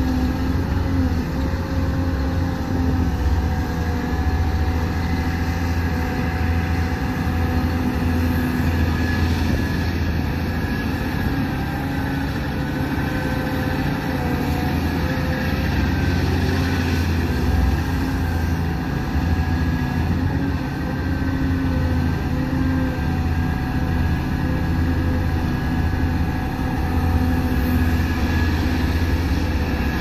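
Diesel engines of heavy earthmoving machinery running steadily under work, with a deep rumble and several held whining tones that waver slightly in pitch.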